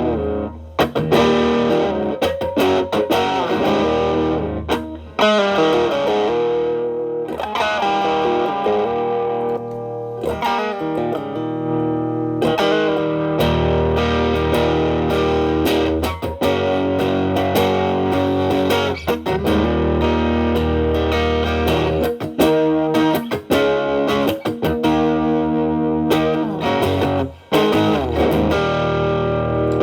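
Telecaster electric guitar with alnico single-coil pickups, played through an MXR Distortion+ stacked with a Boss SD-1 overdrive into a Marshall Valvestate amp's clean channel. Improvised single-note lines and chords with bends, in a driven tone, broken by short pauses between phrases.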